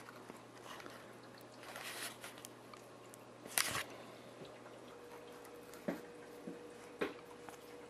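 Quiet hand-handling sounds of a foam model-plane fuselage and a glued plywood mount: soft rustles and squeaks of the foam with a few small clicks, the crispest about three and a half seconds in, and two soft knocks near the end. A faint steady hum comes in about five seconds in.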